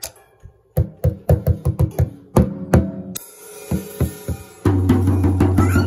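Drum kit struck with a wooden drumstick: a quick run of about a dozen hits, then a few sparser strikes, on a snare drum with a plush toy lying on its head. A high hiss joins in the second half, and a steady low tone sounds over the last second or so.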